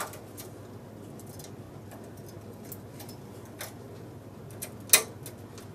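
A few scattered small metal clicks of a transfer tool against a knitting machine's latch needles and needle bed as stitches are handled, the sharpest one near the end.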